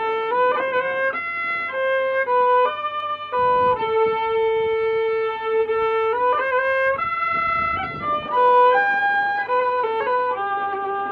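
Background music: a fiddle playing a melody of long held notes broken by quick short grace notes.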